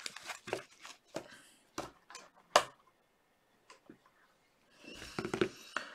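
Light clicks and taps of hard plastic card cases being handled and set down, about ten scattered clicks in the first four seconds with the loudest about two and a half seconds in. A short rustle of handling near the end.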